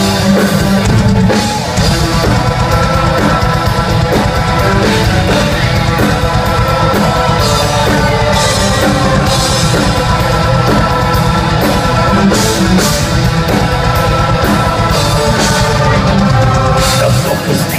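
Gothic metal band playing live: distorted electric guitars and a drum kit, loud and continuous.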